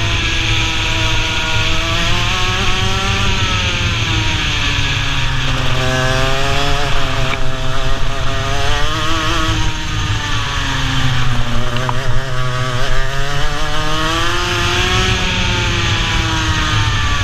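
Racing kart's two-stroke engine heard from on board, revving hard. Its pitch drops about four seconds in, climbs again from about six seconds, drops near ten seconds, climbs from about twelve seconds and falls again near the end, as the driver lifts for corners and accelerates out of them.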